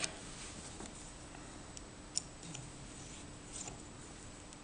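A few faint metal clicks and small taps as a steel collar is fitted onto a lathe tailstock shaft and a hex key is set into its grub screw, one sharper click about two seconds in.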